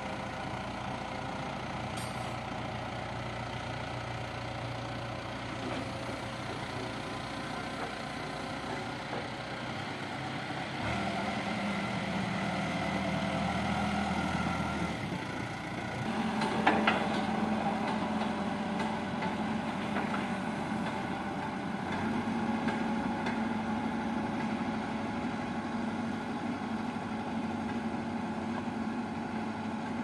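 Diesel engine of a backhoe loader running steadily. About a third of the way in its note rises for a few seconds as the loader works its front bucket. A short knock comes about halfway, and then it runs on as the machine drives off.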